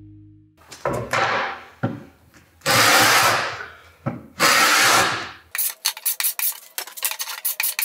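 Paint scraper's blade scraping dried glue off wooden boards. Four long strokes down the board, then a quick run of short rasping strokes near the end.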